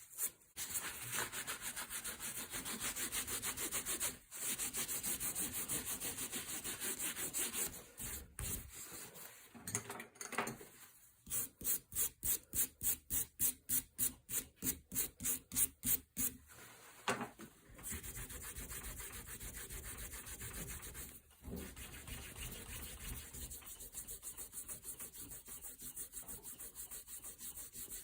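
A homemade checkering tool, a converted flat-bladed screwdriver, rasping across wood. It scrapes steadily, then works in separate strokes about three or four a second for several seconds in the middle, then scrapes steadily again.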